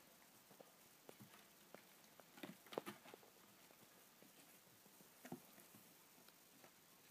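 A kitten's paws and claws tapping and scratching on a wooden bookshelf: faint, scattered light taps, with a quick cluster of several about three seconds in and another near five seconds.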